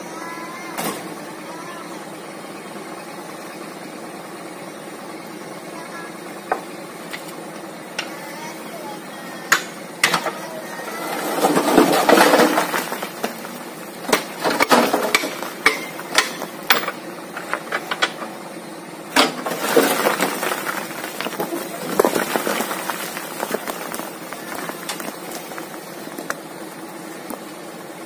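A dump truck's engine idling while the wooden tailgate boards are knocked and pulled loose, giving a string of sharp wooden knocks and clatter. Partway through there is a louder rushing spell as the sand and soil load starts to spill out.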